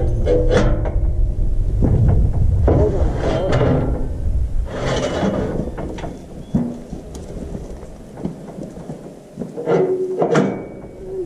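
Knocks and rattles from a steel cattle chute and its gates as it is worked, over a low rumble that fades about two thirds of the way through. Short pitched calls come near the start and again about ten seconds in.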